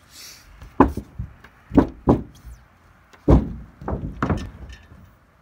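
A series of about eight heavy knocks and thuds over three or four seconds, in clusters, each dying away quickly.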